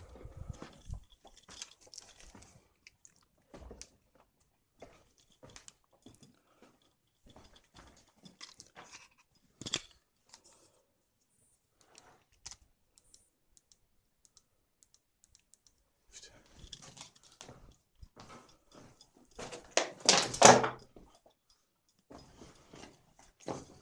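Footsteps crunching on loose stone rubble and gravel, slow and irregular, with a longer, louder scraping crunch near the end.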